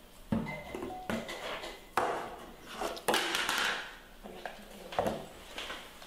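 Hard plastic bucket and its snap-on lid knocking and clattering on a wooden tabletop as a baby macaque handles them, with about five separate sharp knocks and a longer rustling scrape about three seconds in.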